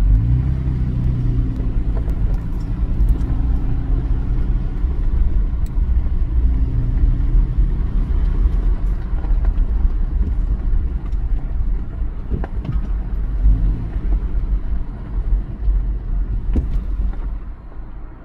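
Double-stack intermodal container train rolling past close by: a loud, steady rumble of steel wheels on rail, with a few sharp clicks and clanks. It eases off near the end.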